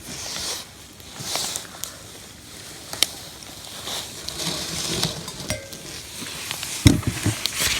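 Spoons clinking and scraping against bowls and pots as people eat, in scattered sharp ticks, with a dull thump near the end.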